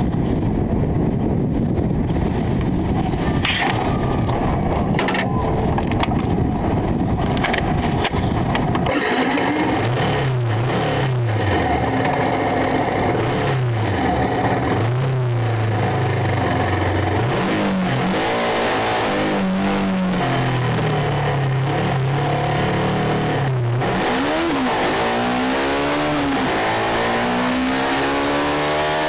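Yamaha YZF-R125's 125 cc single-cylinder four-stroke engine heard from the rider's position, mixed with rushing wind for the first several seconds. The engine then revs up and drops back several times under acceleration, and climbs steadily in pitch near the end.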